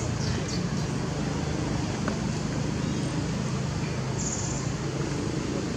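Steady outdoor background noise with a low hum and no distinct events.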